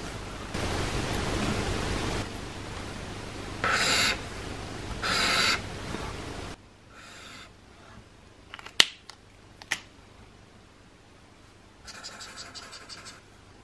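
Felt tips of dual-tip alcohol markers scratching across paper: a couple of short broad strokes laying down a swatch, two sharp clicks after the middle, then near the end a quick rhythmic scratching as the fine tip draws a wavy line.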